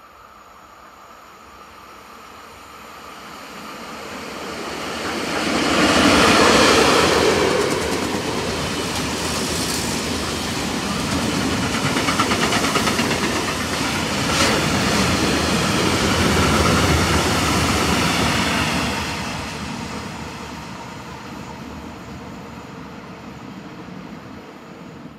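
Freight train of open wagons passing at speed. The locomotive's approach builds to its loudest about six seconds in, then the wagons' wheels run steadily on the rails with a few sharp clicks, and the sound fades over the last few seconds as the train recedes.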